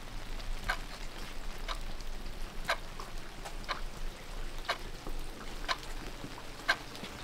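Steady ticking of a clock, one tick every second, evenly spaced, over a soft steady hiss.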